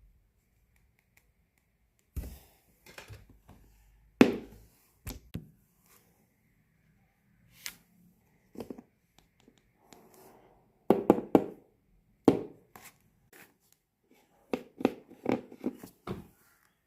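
Slime handled by hand: scattered wet clicks and pops, coming in short clusters with pauses between.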